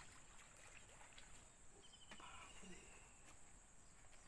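Near silence: faint riverside ambience with a steady, high-pitched insect drone, and a short high trill about two seconds in.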